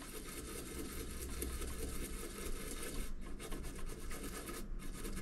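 A small brush scrubbing liquid-damage residue off a wet laptop motherboard, a steady scratchy rubbing.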